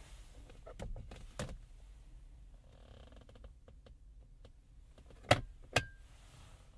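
The plastic wireless-charging tray lid of a 2023 Toyota Prius centre console being unlatched, lifted open over a hidden compartment, and closed again: a few clicks about a second in, faint handling ticks, then two sharp snaps near the end as the lid shuts.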